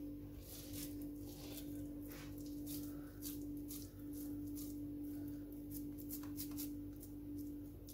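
Oiled hands squishing and patting a minced beef and lentil kebab mixture into a patty: soft, irregular little squelches and pats, over a steady hum.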